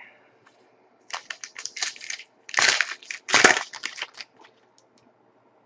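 Trading cards being slid and shuffled against each other by hand, a run of crinkly rustles over about three seconds starting about a second in.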